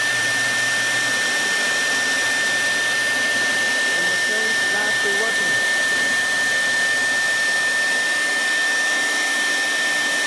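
Spindle motor of a 1325 CNC router running at speed: a steady high whine over a constant airy hiss.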